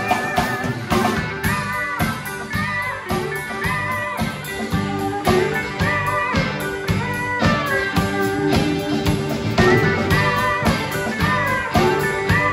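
Live band playing an instrumental passage: electric guitar and pedal steel guitar over a steady drum beat, with notes bending in pitch.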